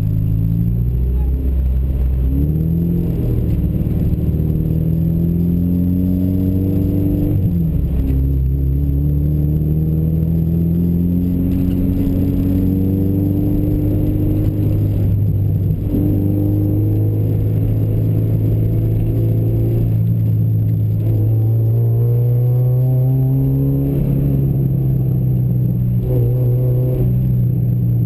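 A vehicle engine, heard close, while driving slowly. Its note climbs and drops sharply about three times, like pulling away through the gears, then holds a steadier note with one slow rise.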